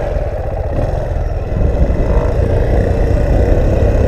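Motorcycle engine running at low speed, mixed with wind buffeting the microphone; the sound gets a little louder about one and a half seconds in.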